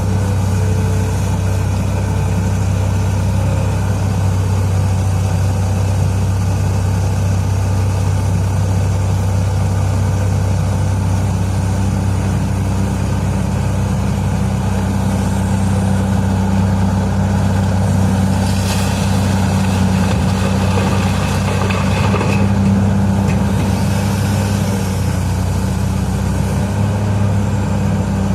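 Heavy diesel engines of mining machinery running steadily with a deep, even drone. About two-thirds of the way through there is a rougher, hissier stretch of noise lasting a few seconds.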